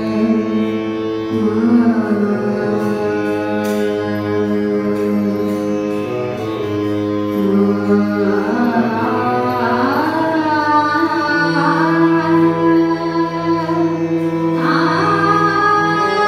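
Harmonium holding long, steady notes of an Indian devotional song, with a singing voice sliding slowly between pitches, first about halfway through and again near the end.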